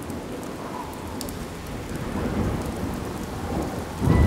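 Rain sound effect, a steady hiss that slowly grows louder, with a sudden loud clap of thunder rumbling in near the end.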